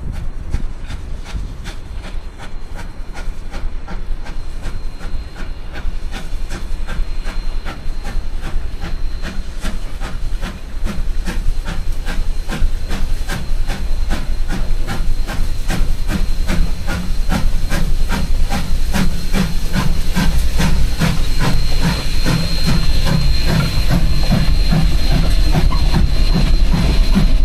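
Durango & Silverton K-36 narrow-gauge steam locomotive No. 480 working upgrade: a rapid, even exhaust chuffing with a steady high hiss, growing louder as it approaches and passes close by near the end.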